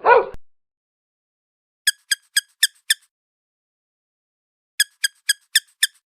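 The tail of a dog's bark at the very start, then two runs of five quick, high-pitched squeaks, each run about a second long, the second starting about three seconds after the first.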